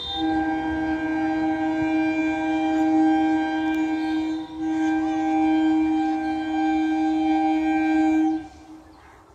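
Electric local train's air horn sounding two long, steady blasts, the second following almost at once after a brief break, each a chord of several notes.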